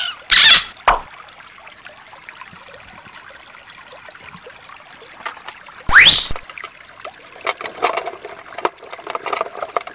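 Shallow water trickling over stones, a faint steady wash. There is a loud burst in the first second and a loud, brief sound rising in pitch about six seconds in. Near the end come many sharp clicks of plastic toys clattering in a clear plastic box.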